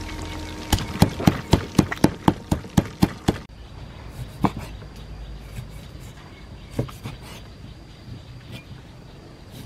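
Wooden pestle pounding nuts in a wooden mortar, about four quick knocks a second for roughly three seconds. After that, a couple of single knocks of a cleaver cutting limes on a wooden chopping board.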